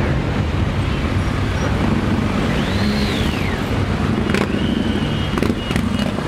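Many motorcycle engines rumbling together as a column of bikes rides slowly past. About halfway a single rising-and-falling whistle cuts through, and near the end a steady high tone and a few sharp cracks are heard.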